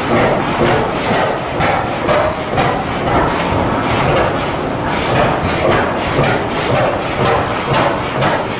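Several antique stationary gas engines running at once, their overlapping firing knocks and clatter making a steady, irregular stream of sharp beats.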